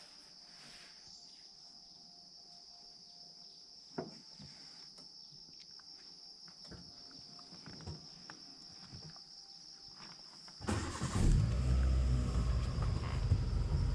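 A steady high-pitched drone of insects in the forest, with a few small clicks; near the end a motor vehicle's engine starts up and keeps running with a loud low rumble that covers the insects.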